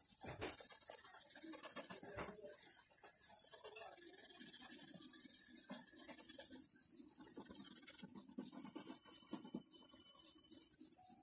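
A graphite drawing tool rubbing on paper in many quick, short shading strokes, a faint continuous scratchy sound.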